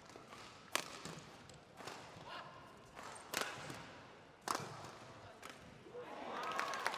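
Badminton doubles rally: the shuttlecock is struck by rackets with sharp cracks about every one to one and a half seconds, with shoes squeaking on the court. Near the end the rally ends and audience applause builds.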